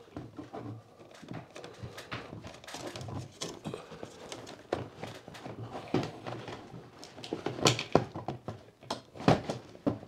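A bladeless ceiling fan's body rubbing, clicking and knocking against its ceiling mounting base as it is shifted around to line up with the notches, with a few sharper knocks in the second half.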